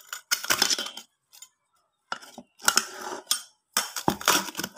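Metal spoon scraping and clinking against the inside of a metal pot, working at food burnt onto the bottom, in four separate strokes.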